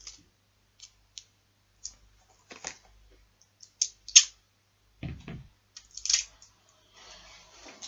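Scattered clicks, taps and rustles of small objects being handled while a play-button plaque is worked on by hand, with a dull knock about five seconds in.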